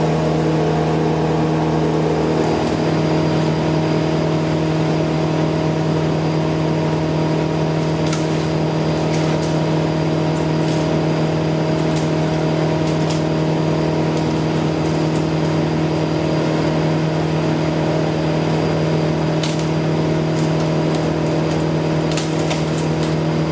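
An engine running steadily at a constant speed, with a few sharp clicks or cracks around the middle and near the end.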